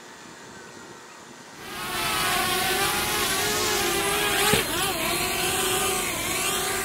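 DJI Spark drone's propellers whining at a steady pitch, starting about one and a half seconds in. About three seconds later it hits the roof with a single thud, and the whine wobbles in pitch as the motors correct. The owner blames the rough landing on the bottom sensor failing after flying through smoke, so the drone did not know the ground was there.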